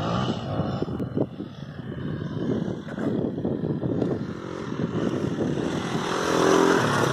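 Dirt bike engine revving up and down as it rides a sand motocross track, getting louder near the end as the bike comes closer.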